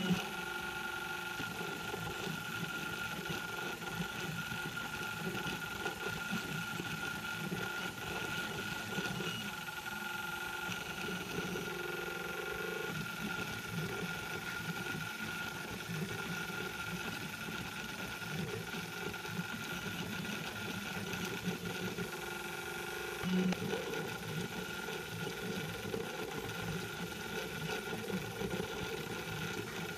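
M3D Micro 3D printer's stepper motors running during a print: a buzzing hum that shifts in pitch every few seconds as the print head changes its moves, over a steady high whine. A short louder buzz comes about 23 seconds in.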